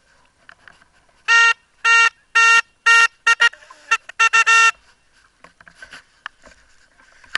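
A loud horn-like signal tone sounded in blasts at one steady pitch: four longer blasts about half a second apart, then a quicker run of short ones.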